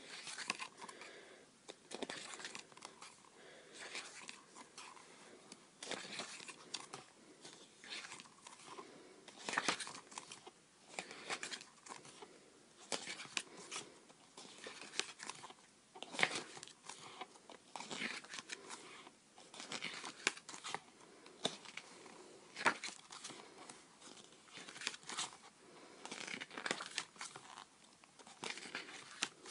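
Irregular rustling, crinkling and tearing of paper and plastic as K-pop album contents and their packaging are handled and opened.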